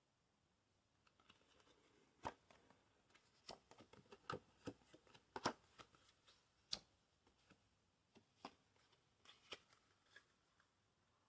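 A deck of Legends Playing Card Company Draconian Wildfire playing cards being handled in the hands, the deck split into packets. The cards give a series of irregular sharp snaps and clicks, the loudest about halfway through.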